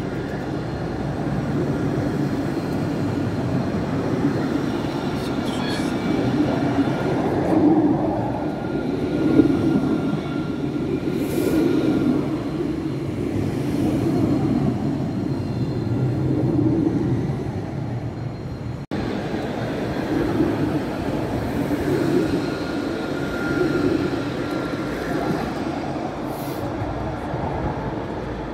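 Tram running on its rails: a steady rumble that swells and eases every couple of seconds, with a faint high whine at times. It breaks off for an instant about two-thirds of the way through.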